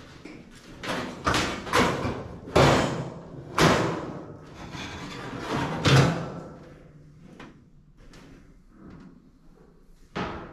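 A sheet-steel roof skin knocking and clunking against a car body shell as it is handled and set in place: a run of sharp knocks in the first six seconds, then fainter shuffling.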